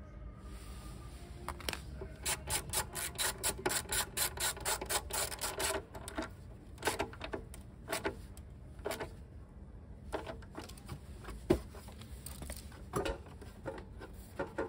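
Ratchet wrench clicking in quick, even runs of about four to five clicks a second on the seized kick-start lever of a Yamaha YBR 125, then scattered metal clicks and taps with one sharp knock about eleven and a half seconds in.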